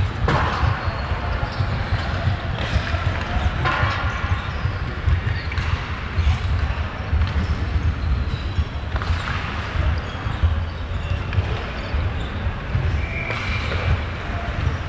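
Ice hockey play on an indoor rink: skates scraping the ice and sticks and puck clacking, several sharp scrapes and hits over a steady low rumble.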